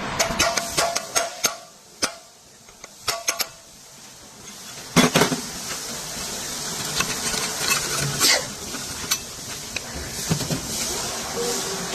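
Metal parts clanking and clicking, with irregular sharp knocks, loudest as a double clank about five seconds in.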